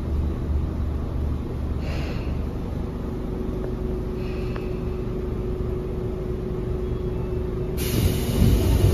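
Tobu 9000 series electric train running in a tunnel, heard inside the passenger car: a steady low rumble with a steady hum joining it about three seconds in. Short hisses of air come at about two and four seconds, and a sudden, louder hiss of air starts near the end.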